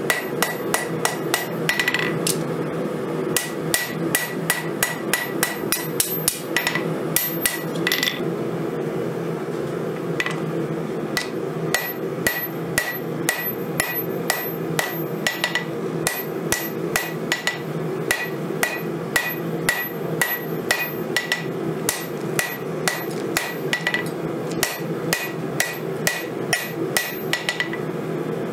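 Hand hammer forging a red-hot steel knife blade on a Vevor 132-pound anvil: a steady run of blows, about two a second, each with a short bright ring from the anvil.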